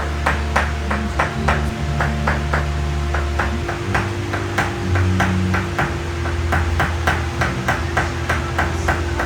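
Rhythmic knocking, about three to four even blows a second, over low held bass notes that change pitch every second or two.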